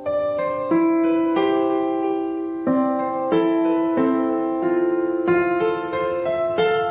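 Background piano music: chords struck about once a second, each note ringing and fading before the next.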